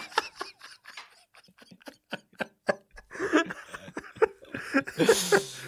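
People laughing in short, breathy pulses, faint at first and louder and fuller about halfway through.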